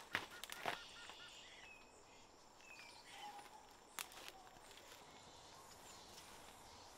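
Quiet forest ambience: a few crackling footsteps on dry leaves and undergrowth in the first second, and a single sharp snap about four seconds in. Faint short bird chirps sound now and then.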